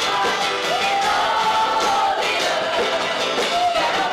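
Worship music with a group of voices singing long held notes together.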